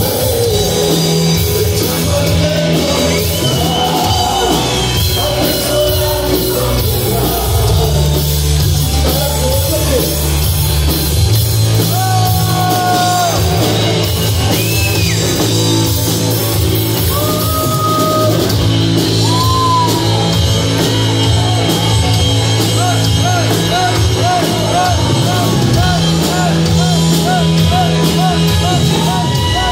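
A rock band playing live, loud and unbroken: electric guitars, bass and drums, with sung vocals. A wavering, repeating high line runs through the second half.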